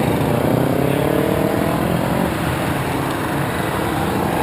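Motorcycle engine running under way, with a steady rush of road noise; an engine note climbs gradually over the first couple of seconds.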